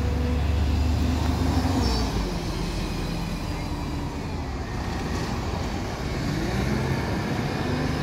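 Double-decker bus engine running as the bus pulls away and drives off down the street, its low drone easing a little after about two seconds, with road traffic around it.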